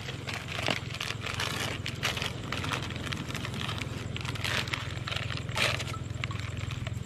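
Plastic instant-noodle seasoning packets crinkling as they are torn open and squeezed out over a pot of boiling noodles, many small irregular rustles and crackles, over a steady low hum.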